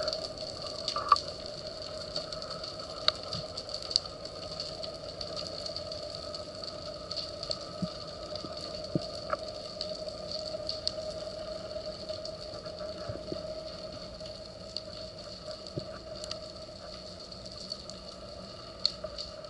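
Underwater ambience picked up through a camera's waterproof housing: a steady hum and a high whine, with scattered faint clicks and crackles and one sharper click about a second in.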